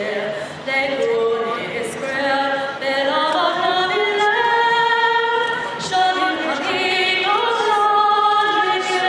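A woman singing a national anthem unaccompanied, holding long notes.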